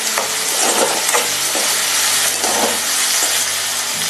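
Onions, garlic, tomato and curry leaves sizzling in hot sesame oil in a pan while being stirred, with several short scrapes of the stirring spoon against the pan.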